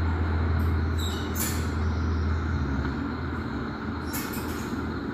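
Low steady rumble of a vehicle engine running, easing off after about two and a half seconds, with a few brief hissing bursts.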